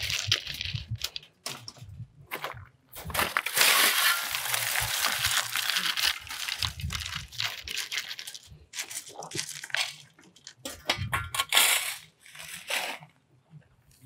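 Gravel crunching and rattling in irregular bursts as it is shovelled and spread into the top of a stone-filled wire-mesh gabion, loudest for a couple of seconds about four seconds in. The gravel is going in to fill the voids between the stones.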